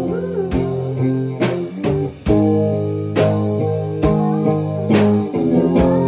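Blues jam band playing live: electric guitar riffing over a steady drum beat, with a harmonica wailing in bent notes.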